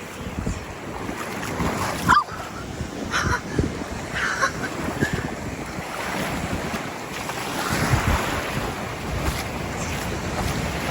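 Ocean waves washing up on a sandy shore, with wind buffeting the microphone in gusts.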